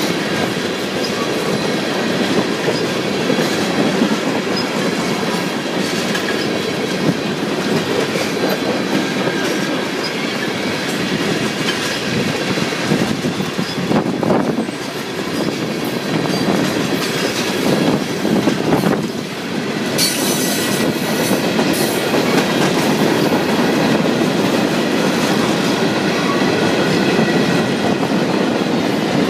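Freight train of tank cars rolling past, a steady loud noise of steel wheels on the rails that dips briefly twice about halfway through.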